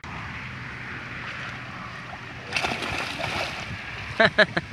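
A child plunging into a shallow river: a splash about two and a half seconds in, then water sloshing around him. Near the end come three short high cries in quick succession.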